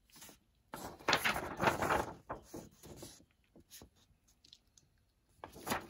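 Paper being handled: book pages and loose paper inserts rustling and sliding in a few short bursts, with faint ticks between and another rustle near the end.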